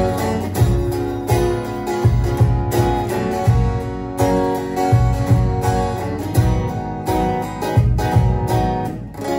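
Acoustic guitar strumming chords, with a cajon keeping time in steady low thumps about every 0.7 seconds. A strong chord is struck right at the end and left ringing.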